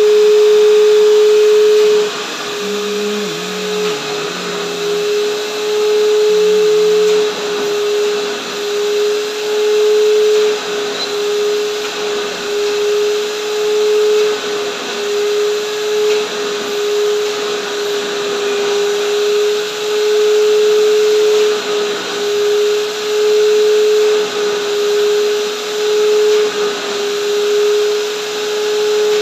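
Canister vacuum cleaner running with a steady, loud motor whine, its level swelling and dipping as the upholstery nozzle is worked over fabric sofa cushions.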